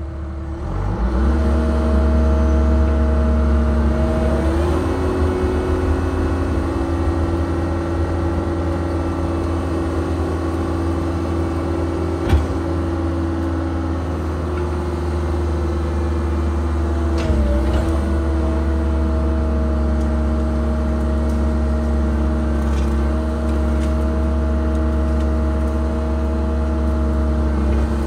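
Caterpillar 306 excavator's diesel engine and hydraulics running under load, heard from inside the cab as the boom works. The engine climbs in speed about a second in, and its pitch sags briefly about two-thirds through. There is a single sharp knock near the middle.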